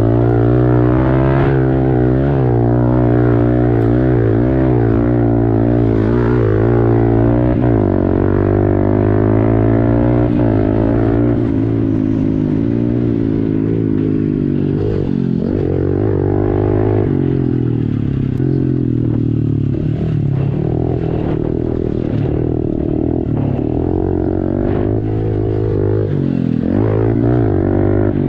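Honda CRF110 pit bike's small single-cylinder four-stroke engine running continuously, its pitch wavering up and down with the throttle.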